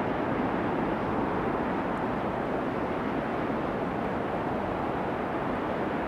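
Steady helicopter engine and rotor noise, heard from aboard during flight.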